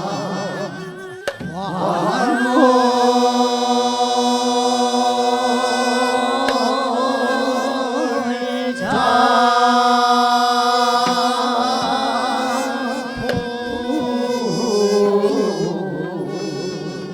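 Male and female voices singing Naepoje sijo together in the slow traditional style, holding very long notes with a wavering vibrato. They break briefly about halfway through, then settle onto a lower closing note near the end. A few sharp knocks sound under the singing.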